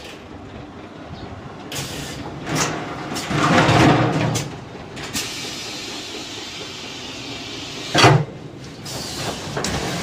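Automatic four-head rinsing machine for 5-gallon water barrels running: a steady mechanical hum with louder rushing, hissing spells as the barrels are rinsed, loudest from about three to four and a half seconds in. One short, sharp burst comes about eight seconds in.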